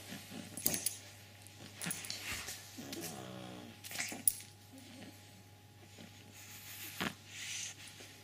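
Pug puppy sniffing and scuffling at a beetle on a hard floor, with scattered claw clicks and scrapes. There is a brief whine about three seconds in.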